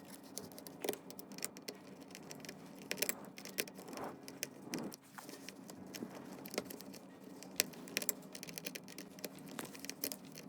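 Irregular small clicks, taps and scrapes of a screw being turned by hand into a drone's GPS stand mount on the frame, over a steady low hum.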